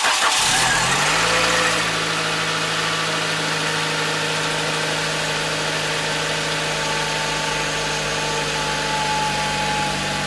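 Nissan 100NX's four-cylinder twin-cam engine just after starting, running a little faster and louder for the first second or two, then settling into a steady, even idle. It runs "sweet as a nut" with no misfire on its new spark plugs and HT leads.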